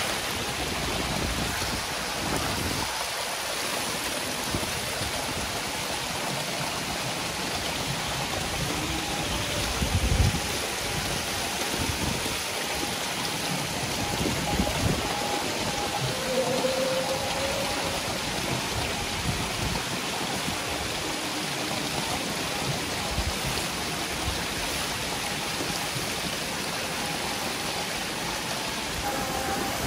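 Thousands of hybrid magur catfish crowding at the surface of a tank as feed is scattered among them, their thrashing making a steady splashing hiss of water. An occasional low thump stands out, the loudest about ten seconds in.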